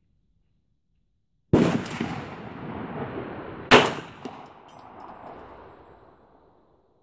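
Two 9mm pistol shots from a Beretta 92FS, about two seconds apart, the first about a second and a half in. Each crack is followed by a long echo that dies away over a few seconds.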